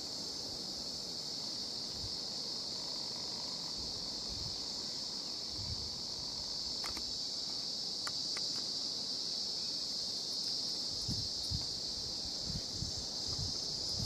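Steady, high-pitched insect chorus from the surrounding bush, with low wind buffeting on the microphone that picks up near the end.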